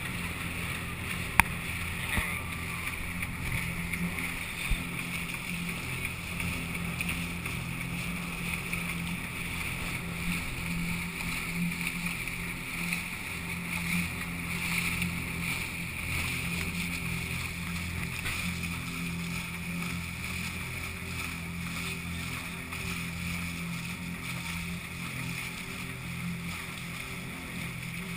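Catamaran's engine running steadily under a constant rush of water along the hulls as the boat motors along. A single sharp knock sounds about a second and a half in.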